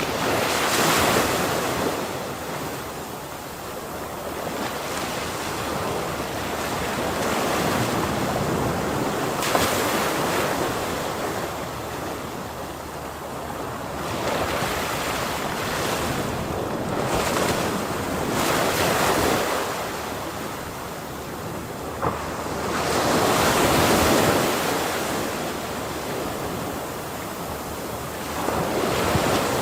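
Ocean waves breaking and washing on the shore, a continuous surf that swells up every few seconds as each wave crashes, with wind on the microphone.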